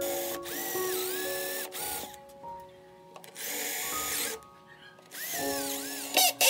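Power drill boring holes into a wooden cabinet top in three bursts, its whine rising and falling in pitch, with background music under it.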